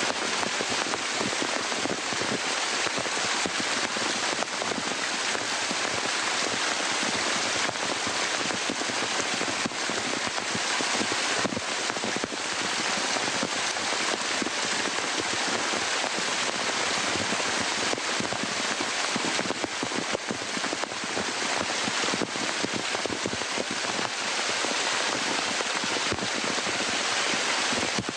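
Waterfall water pouring down a rock face and splashing close to the microphone: a dense, steady rush of falling water.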